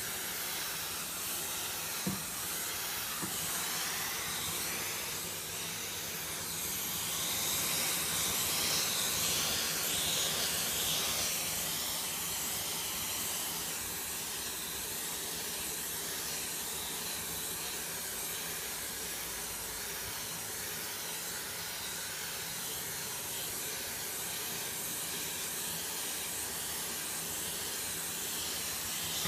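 Vacuum cleaner running steadily, its suction hissing at a brush nozzle drawn through a cat's fur. The hiss grows a little louder for a few seconds partway through. There is one short click about two seconds in.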